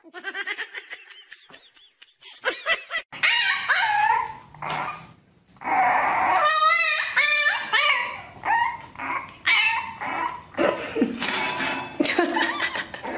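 Puppies yipping and whining, with a few short barks: high cries that bend up and down in pitch, broken by a brief pause about five seconds in.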